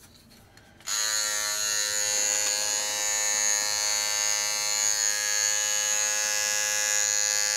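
Philips Norelco MG9000 Prestige cordless trimmer switched on about a second in, then running with a steady electric buzz as it cuts hair.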